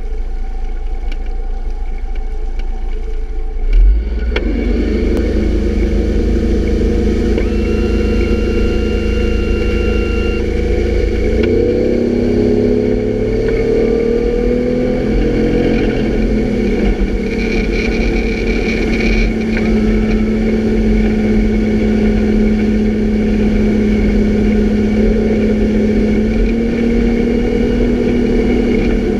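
Motorboat engine opening up about four seconds in, climbing in pitch as the boat gets up to speed, then running steady at speed over the rush of the wake.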